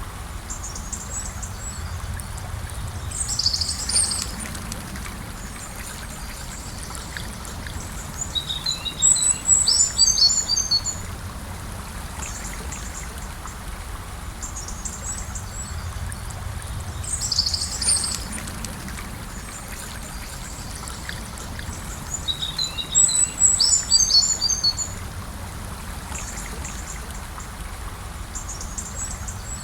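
Gentle river flowing steadily, with a songbird singing over it in four separate phrases: two short ones and two longer runs of quick high notes.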